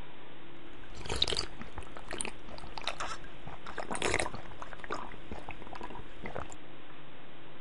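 A man drinking beer from a glass in big gulps, about six swallows at irregular intervals of roughly a second.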